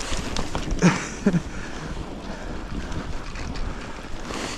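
Wind noise on the microphone over the steady rumble and hiss of a mountain bike ploughing through deep snow, with two short low grunts about a second in.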